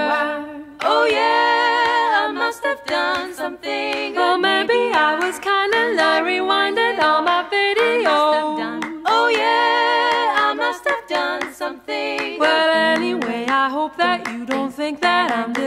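Background music: an a cappella pop song, several voices singing together in harmony with no instruments.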